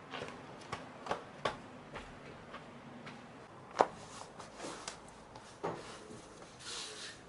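Hands slapping and pressing dough on a marble slab: scattered soft slaps and taps at an uneven pace, the loudest a little before halfway.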